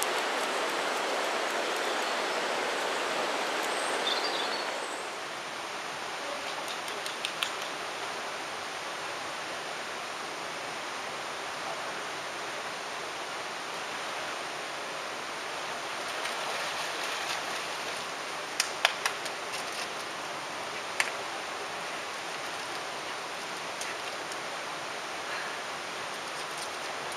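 Steady rushing hiss of a stream flowing through a rocky gorge. It is louder for the first five seconds, then steadier and softer. A few sharp clicks fall around the middle.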